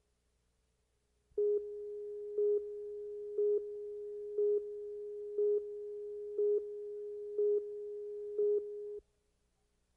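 Electronic line-up tone on a broadcast tape's programme slate: one steady tone with a louder beep once a second, eight times, cutting off sharply about nine seconds in.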